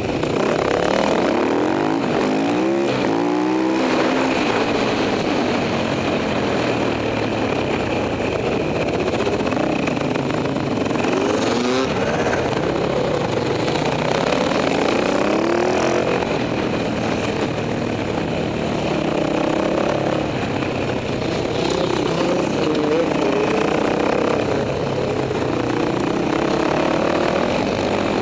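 Dirt bike engines racing close together: the rider's own bike revs repeatedly climbing through the gears and dropping off into corners, with the leading bike just ahead.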